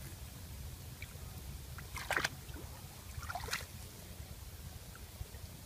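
Shallow muddy water splashing as a net trap is worked by hand, two short splashes about a second and a half apart over a steady low rumble.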